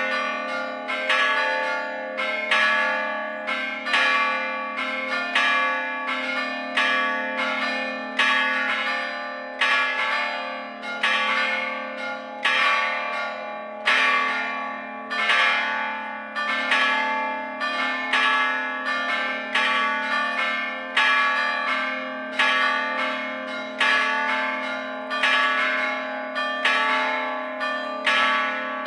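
Full peal of four church bells cast in Gescher, hung in a campanile and struck rather than swung. Their strokes come about once a second in an irregular, overlapping pattern, with the bells' tones ringing on between strokes.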